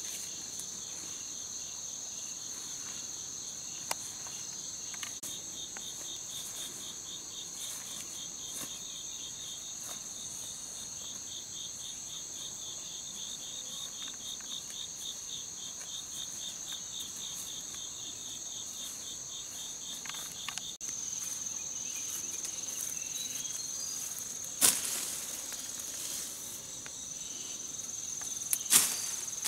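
Forest insects chirring steadily in a high whine, with a fast pulsing insect trill that stops about two-thirds of the way through. In the last few seconds come a few sharp knocks, the loudest being a machete chopping at a tree branch.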